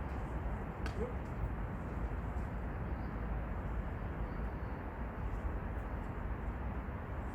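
Steady outdoor noise with heavy low rumble, typical of wind on the microphone, broken by a single sharp click about a second in.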